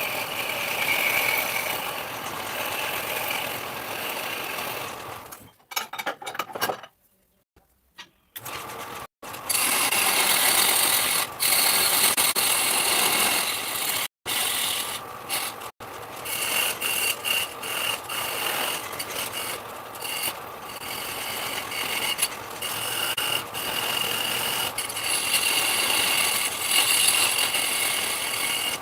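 Power tool motor running while working wood, a dense mechanical whir with rattling. The sound breaks off abruptly several times.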